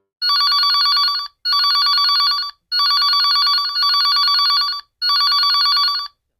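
Telephone-style ringing: four trilling rings, each about a second long except the third, which lasts about two seconds.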